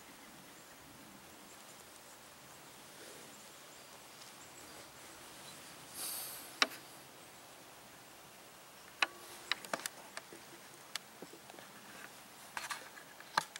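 Faint hiss of quiet woods, broken by a short rustle of clothing about six seconds in and then a scatter of small clicks and taps as the camera is handled and turned around.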